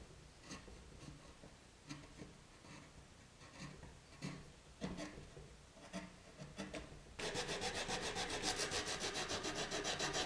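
Wooden block being shaped by hand: a few separate scraping strokes, then from about seven seconds in a louder, fast, even run of rubbing strokes, about eight a second.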